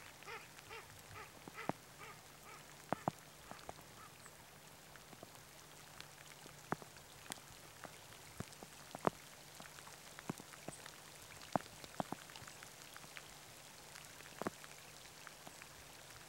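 Raindrops ticking sharply at irregular intervals, roughly one a second, over a faint steady hum. In the first two seconds there is a quick run of short calls, about four a second.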